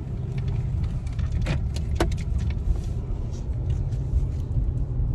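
Steady low rumble of a vehicle in motion, with two sharp clicks about one and a half and two seconds in.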